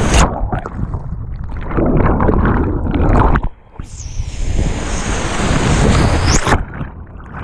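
Whitewater river rapids rushing loudly around a kayak. The rush turns abruptly muffled and dull twice, soon after the start and again near the end, with a short drop in level about halfway through.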